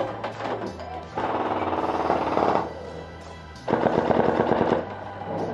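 Electric airsoft rifle firing two full-auto bursts, the first about a second and a half long and the second about a second, each a fast, even rattle.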